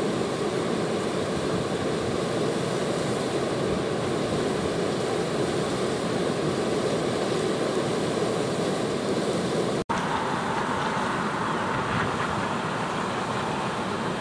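Floodwater pouring over a river weir and churning in the pool below, a steady rush of water; the river is in spate after heavy rain. A momentary break about ten seconds in, after which the rush is brighter and hissier.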